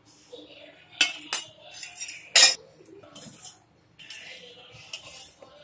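A metal spoon clinking and scraping against a stainless steel pot while spice masala is mixed into fish pieces. There are a few sharp clanks in the first half, the loudest about two and a half seconds in, followed by softer scraping and rustling.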